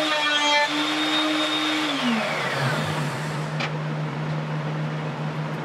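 High-speed router in a router table whining steadily after routing a roundover on the edge of a fabric-wrapped drum shell, then switched off about two seconds in and winding down with a falling whine. A lower steady machine hum carries on underneath, with a single sharp click shortly after.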